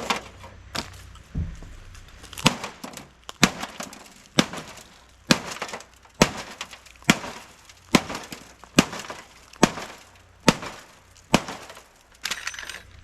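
An iPhone being struck again and again, about once a second, its shattered glass back cracking and breaking under each blow.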